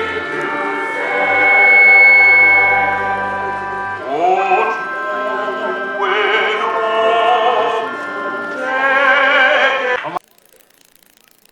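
Choir singing sacred music, held chords and then voices with a wide vibrato; it cuts off suddenly near the end.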